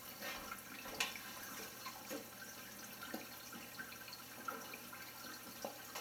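Faint trickling and bubbling of water in a saltwater reef aquarium, with scattered small drips and one sharp click about a second in.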